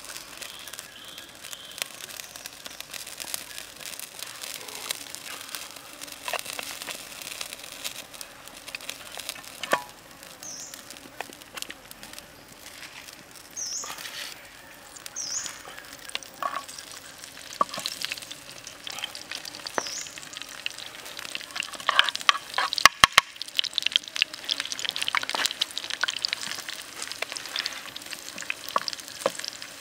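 Cooking oil sizzling and crackling in a small square frying pan over a wood fire. A little past the middle, after a few sharp knocks, sliced shallots, garlic and chili go into the hot oil and the sizzling turns louder and busier.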